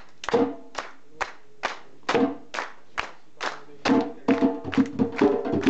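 Gwo ka hand drums (ka drums) played in a steady beat of about two sharp strikes a second; about four seconds in, quicker strokes join and the drum tones ring on under them.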